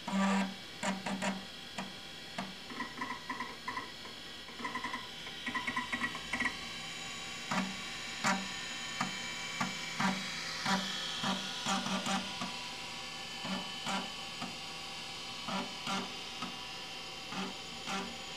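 Stepper motors of a 3.5-inch floppy drive and a Kalok KL-320 20 MB MFM hard disk seeking in short pitched chirps, trading off as MS-DOS 6.22 setup reads files from the diskette and writes them to the hard disk. Quick clusters of chirps come first, then single chirps about once a second, over a steady hum.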